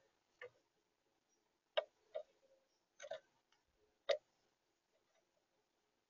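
Faint, irregular taps and clicks, about six in the first four seconds, as a female northern cardinal pecks at seed in a plastic tray feeder.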